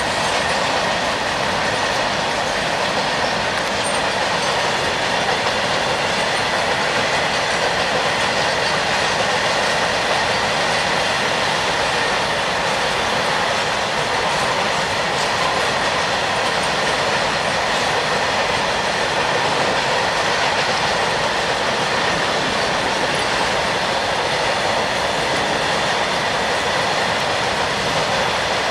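Long rake of covered freight wagons rolling past on a curve: a steady rumble and clatter of steel wheels on rail, with a faint steady high squeal from the wheels.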